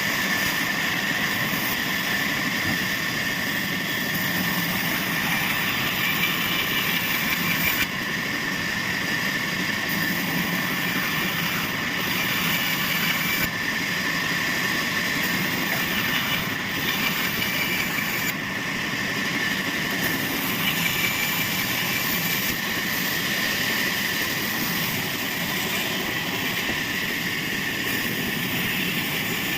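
Sawmill machinery running steadily, a continuous mechanical noise with a steady high whine.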